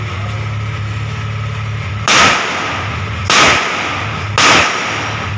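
Three pistol shots fired from a motorcycle, a little over a second apart, each with a short echo, over the steady hum of the motorcycle's idling engine.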